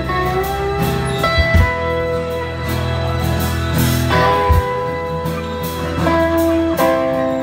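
Live band playing an instrumental passage of a soft-rock ballad: held, sliding guitar lead notes over bass, drums and guitar backing, with no singing.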